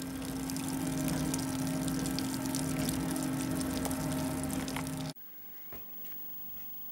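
Windscreen washer fluid spurting and splashing from the rear washer jet's open feed with the nozzle removed, over a steady hum, while the washer feed is tested without the nozzle. It cuts off abruptly about five seconds in.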